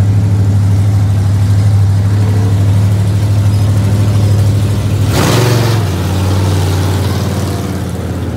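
Big lifted mud trucks' engines running with a low, steady rumble as they drive slowly across a dirt field. A brief rush of noise comes about five seconds in, after which the engine note drops a little.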